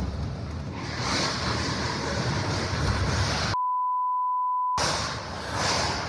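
Strong gusting wind buffeting a phone microphone, growing louder about a second in. A little past the middle all sound is replaced by a steady one-second censor bleep, then the wind noise returns.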